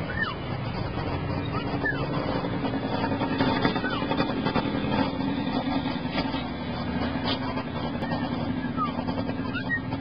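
A steady engine-like rumble with a low hum runs throughout. Over it, a common hill myna gives a few short whistled chirps, one near the start, one about two seconds in, and a couple near the end.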